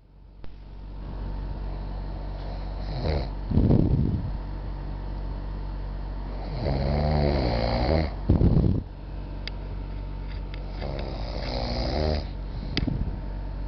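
A man snoring loudly in his sleep: three long, rough snores about four seconds apart.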